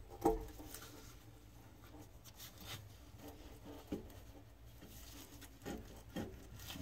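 Faint rubbing and scraping with a few light knocks, loudest just after the start, as a soaped rubber coupling and metal exhaust elbow are worked onto a marine engine's exhaust manifold pipe.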